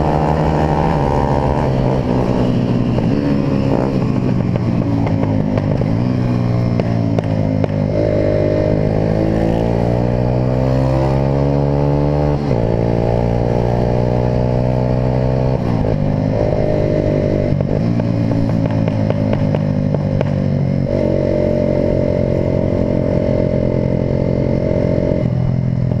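Small commuter motorcycle engine running under way in traffic: its pitch climbs as it accelerates and drops suddenly several times as the rider changes gear or backs off, over steady wind rush.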